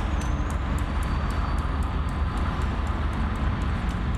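Diesel-electric freight locomotive running steadily during yard switching, a heavy low rumble with a faint regular ticking about three times a second.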